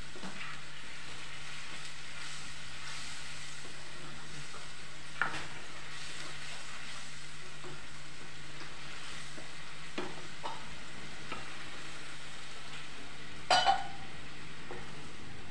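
Masala gravy sizzling in a kadai while a spatula stirs and scrapes through it, with a few light knocks of the spatula against the pan and two sharp knocks, the loudest sounds, near the end.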